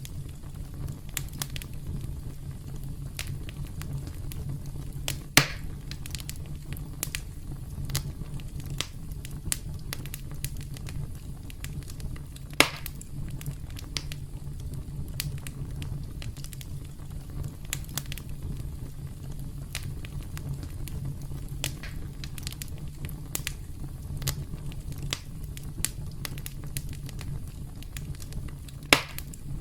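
Campfire crackling: burning wood gives a steady low rumble and frequent small snaps. There are three louder pops, about five and twelve seconds in and again near the end.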